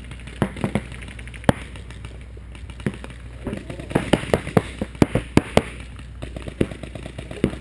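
Paintball markers firing: scattered sharp pops, picking up into a rapid string of shots about four seconds in.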